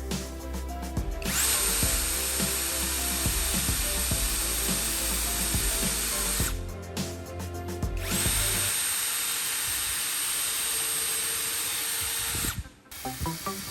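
Electric drill running twice, each run about five seconds, with a steady high whine and cutting hiss, starting and stopping cleanly. Background music plays under it.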